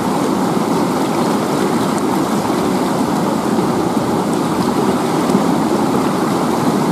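River water rushing steadily over rocks.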